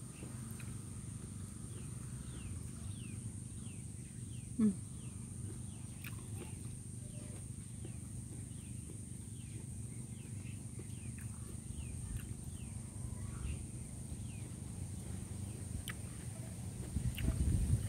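Outdoor ambience: birds repeat short falling chirps, about one or two a second, over a steady high drone and a low rumble. Near the end there is louder rustling as a hand brushes past the clip-on microphone.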